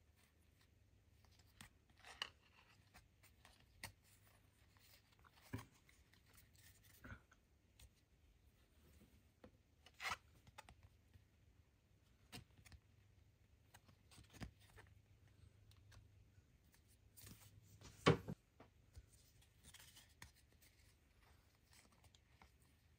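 Trading cards sliding and flicking against each other as a stack is thumbed through one card at a time. They make quiet, irregular soft clicks and rustles, the sharpest about 18 seconds in.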